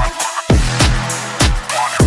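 Electronic dance music with heavy, deep kick drums and sharp snare hits in a fast, steady beat.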